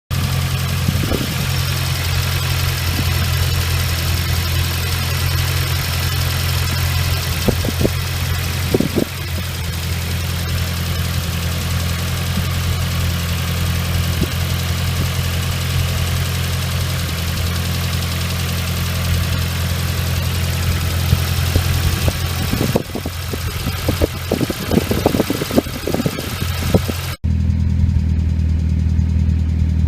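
Nissan CA18DET 1.8-litre turbo four-cylinder idling after a cold start, with a loud weird noise over the steady running that the owner is unsure of and suspects could be the hydraulic lifters; it goes once the engine is warm. About 27 seconds in, the noise above the engine hum drops away suddenly.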